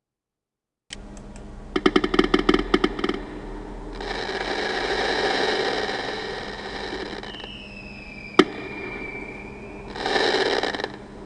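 Fireworks going off: a quick string of crackling pops, then a long hissing whoosh, then a falling whistle with one sharp bang partway through it, and a short burst of hiss near the end.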